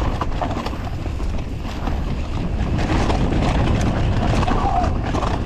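Wind buffeting an action camera's microphone while riding a mountain bike down a trail, with the bike clattering over rough ground in quick small knocks.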